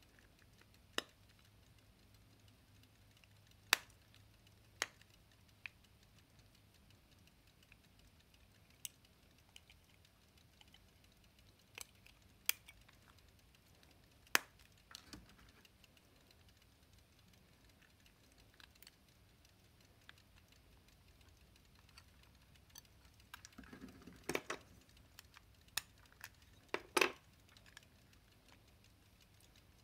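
Scattered sharp clicks and small metallic taps of silver pocket-watch cases being handled and opened, with a busier run of clicks and light rattling near the end.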